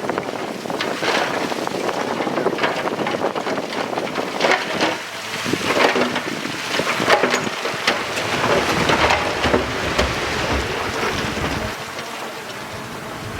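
Heavy earthmoving equipment at work, with repeated clanks and rattles over a noisy rumble that deepens in the middle. Wind buffets the microphone.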